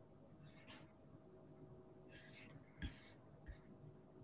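Near silence: faint room tone, with two brief soft hisses and a couple of light knocks about two to three and a half seconds in.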